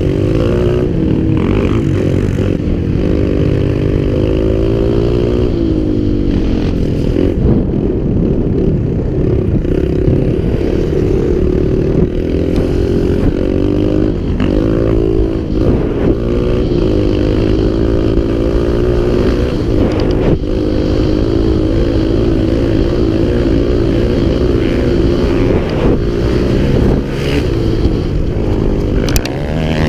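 Dirt bike engine running under load, its pitch rising and falling again and again with the throttle as the bike is ridden.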